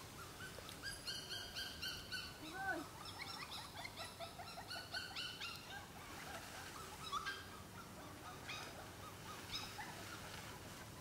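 Puppies whimpering and squealing: many short, high-pitched cries, often several at once, with a few louder ones about three and seven seconds in.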